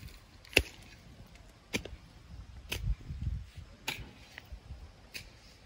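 Metal blade of a digging tool knocking against hard ground and stones, four sharp knocks spaced about a second apart, the first the loudest, with a dull low thud-and-scrape in the middle.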